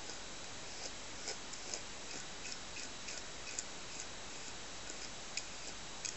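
Light, irregular clicks and ticks from a grooming brush working through a Shih Tzu's long coat, over a steady hiss.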